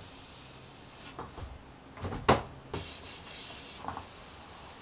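A sapele wood trim strip being handled while finish is wiped onto it with a cloth: soft cloth rubbing and a few light wooden knocks, the sharpest about two seconds in.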